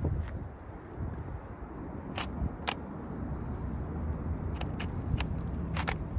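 Canon EOS 60D DSLR shutter firing again and again: sharp single clicks a second or two apart, with a quick pair near the end, over a steady low rumble.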